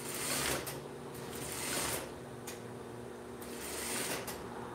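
Juki straight-stitch industrial sewing machine stitching horsehair braid onto sheer fabric in a few short, slow runs, over a steady motor hum.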